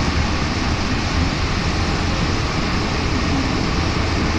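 Rubber-tyred NS-93 metro train running between stations, heard inside the passenger car: a steady rumble and hiss that stays even throughout.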